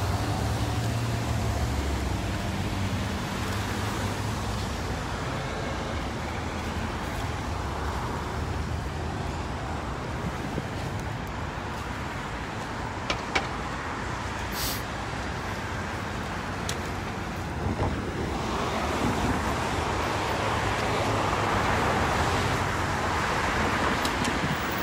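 Road traffic at a street intersection: a low engine hum from cars waiting at the light, then cars driving through, the traffic noise growing louder over the last several seconds as vehicles pass close by.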